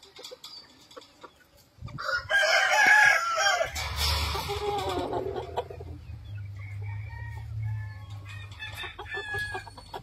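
A gamefowl rooster crows once, starting about two seconds in, followed by short, soft clucks from hens. Under the clucking there is a low steady hum.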